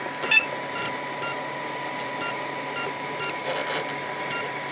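ENTINA Tina 2S 3D printer beeping, a short beep about twice a second over a steady faint tone. It is the alert that the nozzle has reached its 210-degree temperature and filament can be loaded.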